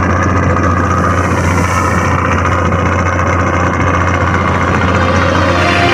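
A small boat's engine running steadily under a continuous low hum, with a dense rushing noise over it.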